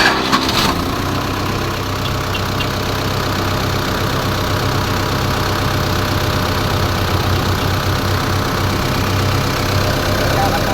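Diesel engine of a hydraulic machine running steadily at idle, with a few sharp clicks in the first second.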